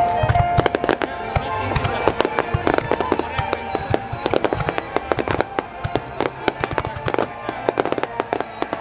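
Fireworks display going off in quick succession: a dense, irregular run of bangs and crackles from aerial shells and crackling stars. From about a second in, a high hiss joins them and runs on.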